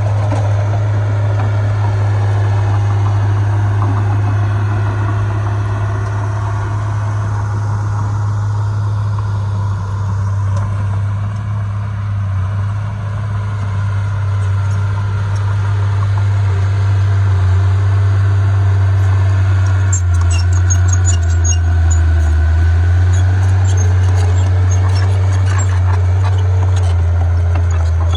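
Heavy earthmoving machinery's diesel engine running with a steady low drone, with scattered light metallic clicks and clanks in the last third.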